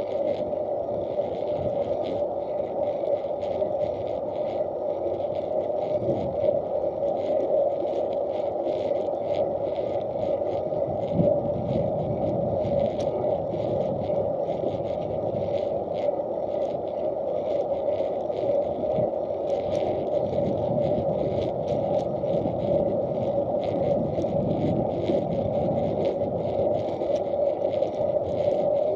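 Steady rolling noise of wheels running on an asphalt path, heard through a waterproof action-camera housing: an even hum with a constant stream of small ticks and rattles.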